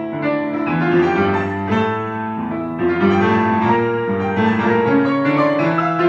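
Piano music: chords and a melody of held notes that change every half second or so.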